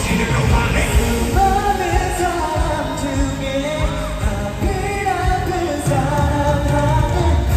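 K-pop song with a lead voice singing a melody over band backing.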